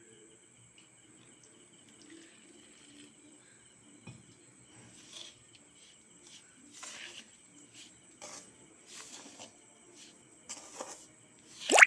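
Ladle stirring and scraping hot ragi flour dough in a vessel: short intermittent scrapes from about five seconds in, with a sharp knock just before the end. A faint steady high-pitched tone runs underneath.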